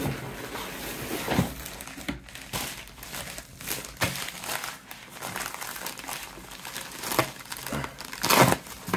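USPS padded flat-rate mailer crinkling and rustling as hands handle it, with a loud crinkle near the end.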